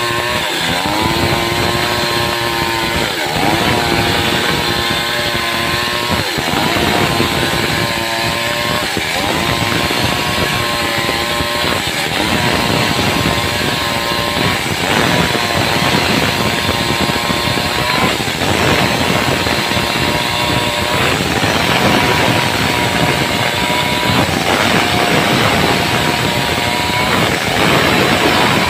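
Two-stroke Stihl chainsaw running at high revs under load as it rip-cuts lengthwise through a log. Its engine note holds steady, then dips briefly every two to three seconds.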